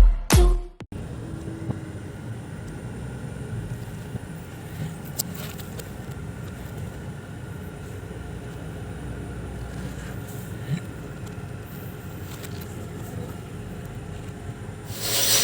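Electronic dance music cuts off in the first second, followed by the steady low rumble of a car with a few faint clicks.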